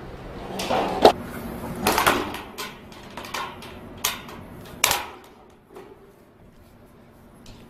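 Sharp metallic knocks and clinks from gloved hands working in a galvanized steel channel section, about seven in the first five seconds, each with a brief ring.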